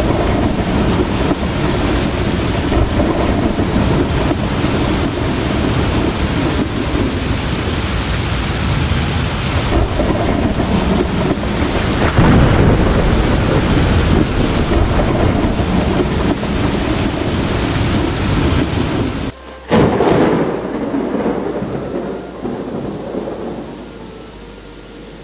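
Heavy rain pouring steadily with deep rolling thunder, the rumble swelling strongest about halfway through. Near the end the sound drops out abruptly, there is a short loud burst, and the rain goes on much quieter.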